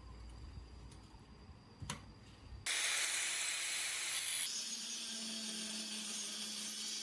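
A single click, then a loud steady hiss that starts abruptly about three seconds in, with a low steady hum joining it partway through.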